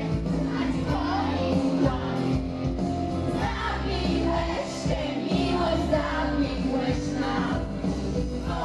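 Women singing into handheld microphones over a backing track with a steady bass line, amplified through a stage sound system.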